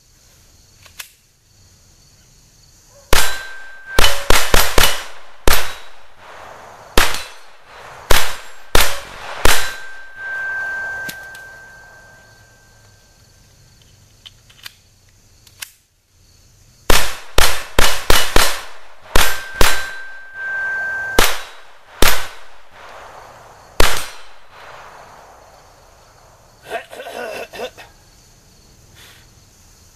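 Smith & Wesson M&P 22 Compact .22 LR pistol fired in two quick strings of about ten shots each, a few seconds apart. After some hits a steel target rings on with a steady tone for a second or two.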